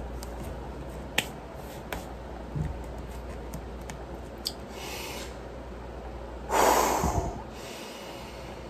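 A man breathing hard while doing push-ups, with one loud, forceful exhale about six and a half seconds in and a few faint taps, over a steady low hum.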